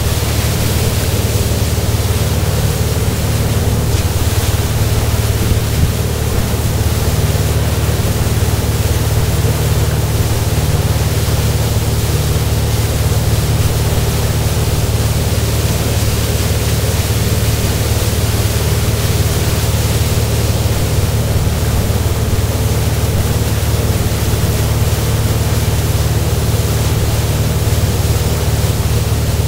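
Tow boat's inboard engine running steadily at speed, a low drone under a constant rushing noise of wind and churning wake water.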